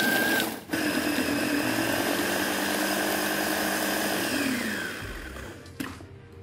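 Electric mini food chopper's motor running at full speed, coarsely chopping red chilies, garlic and shallots. It cuts out for a moment under a second in and starts again, then winds down about four and a half seconds in with its whine falling away, followed by a sharp click near the end.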